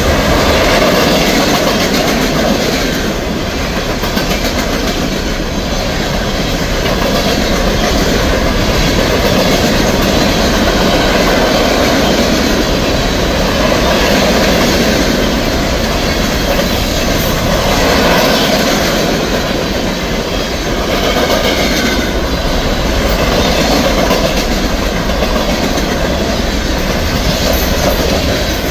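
Freight cars of a fast-moving CSX train, mostly covered hoppers, rolling past close by: a steady, loud noise of steel wheels running on the rails.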